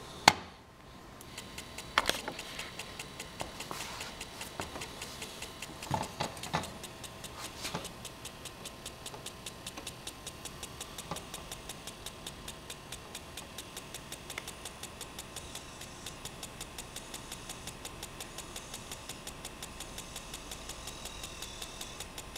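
Commodore 1541 floppy drive spindle turning with a piece of floppy shrink tube taped to its hub, flicking once per revolution: a steady ticking at about five ticks a second, the drive's rotation rate. A few louder knocks come in the first eight seconds.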